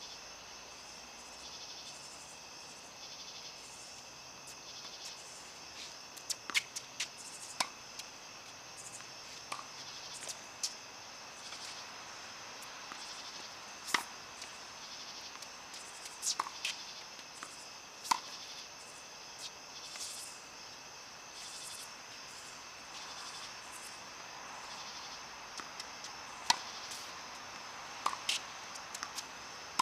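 Tennis balls struck by rackets and bouncing on the court: sharp pops at irregular intervals, some in quick pairs, over the steady chirring of insects.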